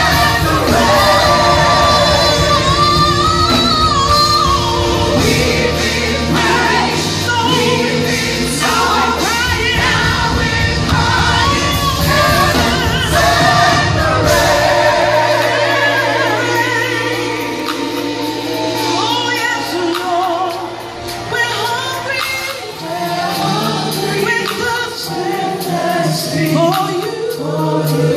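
Gospel choir singing a worship song live with a band. For the first half the bass and full band sit under the voices; about halfway the low end drops away and the voices carry on over lighter accompaniment.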